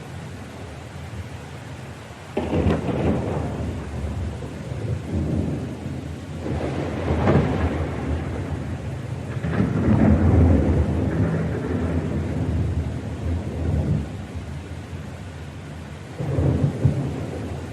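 Thunder over steady rain. A sudden clap about two seconds in is followed by more rolling peals, the loudest just past the middle, and a shorter clap near the end.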